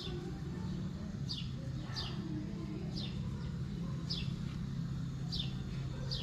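A bird calling with short, high chirps that fall in pitch, about one a second, over a steady low hum.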